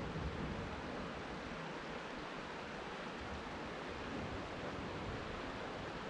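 Rapids of the Vantaa River rushing in a steady, even stream of noise.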